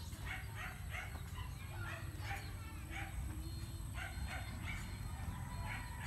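A dog barking in short, repeated yips, several in quick succession and then spaced out, over a steady low rumble.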